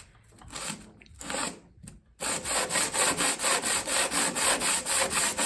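An extruded blower adapter plate is being scrubbed back and forth on 80-grit sandpaper laid flat, to lap its bottom level so it won't rock and leak vacuum. It starts with a few light rubs, then settles about two seconds in into a steady rhythm of about three strokes a second.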